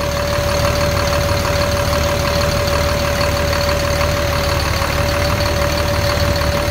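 Forklift engine idling steadily, its belt spinning the new alternator and the other pulleys, with a steady whine held over the idle.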